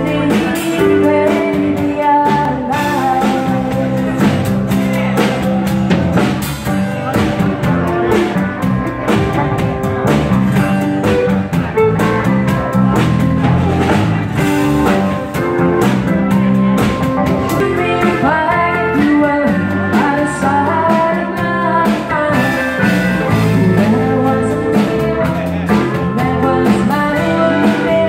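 Live country band playing, with pedal steel guitar, acoustic and electric guitars and drums, and a woman singing lead.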